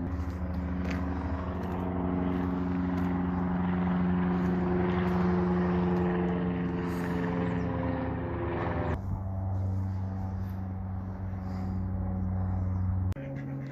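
Light piston-engine propeller airplane droning steadily. The drone changes abruptly about nine seconds in and again near the end.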